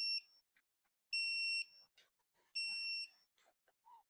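Digital torque wrench beeping as each cam retaining plate T40 bolt reaches its set torque of about 15 foot-pounds: short, high-pitched beeps about every second and a half, with faint ticks of the wrench between them.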